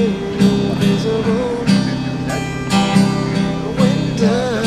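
Steel-string cutaway acoustic guitar strummed in chords, with a man's voice singing along in a wavering melody.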